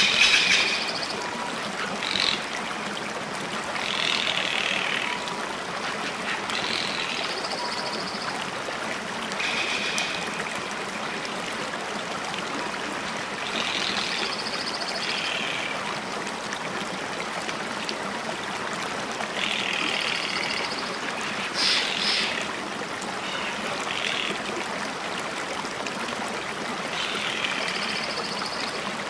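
A steady rush of flowing water, like a stream, with short high calls every few seconds, louder once at the start and again past the two-thirds mark.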